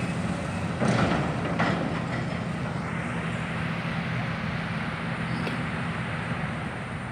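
Heavy excavator's diesel engine running steadily under load, with a couple of metallic knocks about a second in.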